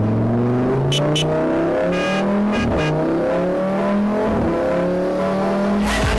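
Car engine accelerating through the gears: the pitch climbs, drops back at each shift and climbs again, several times over. Two short clicks about a second in.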